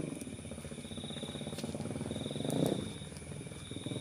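A motorcycle engine passing by, growing louder to a peak about two and a half seconds in and then fading. Insects chirp in repeated phrases over a steady high insect whine.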